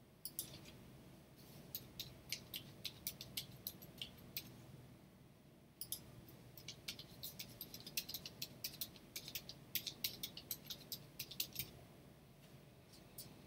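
Computer keyboard typing: a run of quick keystrokes, a gap of about a second, then a longer run as a login name and then a password are typed in.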